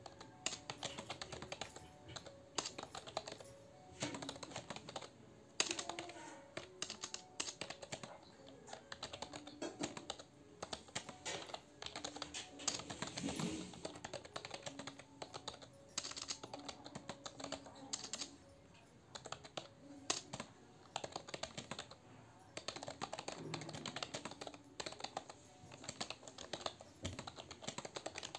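Computer keyboard being typed on fast and continuously: a dense stream of key clicks in quick runs with brief pauses between them.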